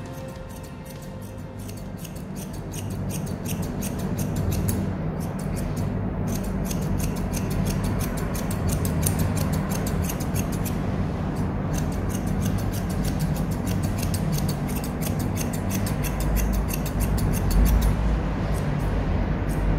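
Grooming scissors snipping quickly and steadily through a Maltese's long white coat, a fast run of crisp metallic cuts over background music.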